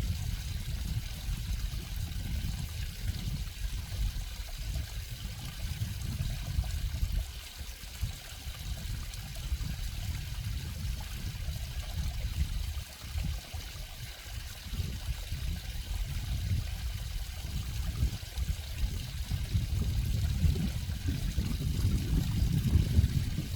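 Water trickling and flowing steadily, over a low uneven rumble that weakens in the middle and swells again near the end.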